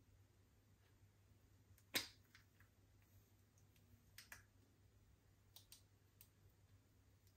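Slime being handled, with faint scattered clicks and pops: one sharper click about two seconds in, a close pair a couple of seconds later, then a few fainter ones.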